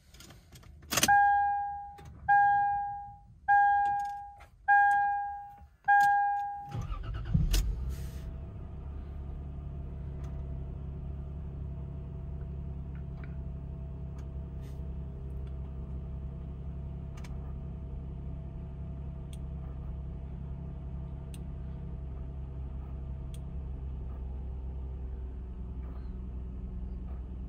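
A dashboard warning chime dings five times, then the 2002 Lexus IS300's 3.0-litre inline-six cranks briefly on the starter and catches on a cold start. It settles into a steady idle, with a faint steady tone over it that drops out near the end.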